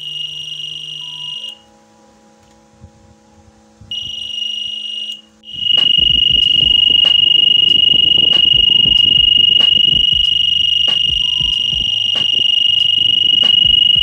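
Piezo buzzer of a PIR motion alarm sounding a single high, shrill tone, set off by movement in front of the sensor. It gives two short blasts of about a second each, then sounds continuously from about five and a half seconds in.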